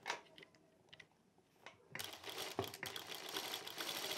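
Juki DDL-900B industrial lockstitch sewing machine stitching, gathering fabric under a gathering foot; it stops briefly right at the start, with a few small clicks in the pause, and runs steadily again from about two seconds in.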